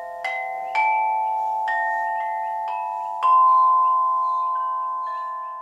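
Tuned metal chimes struck one note at a time, at an uneven slow pace, each note ringing on under the next. The loudest strike comes about three seconds in, and the sound fades towards the end.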